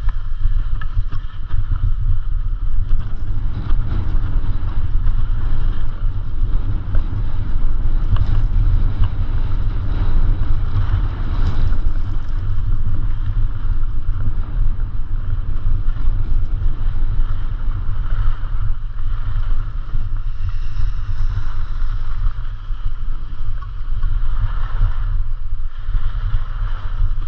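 Wind noise on the microphone of a skier's camera moving downhill, over the hiss of skis sliding on packed snow, which swells a couple of times with the turns.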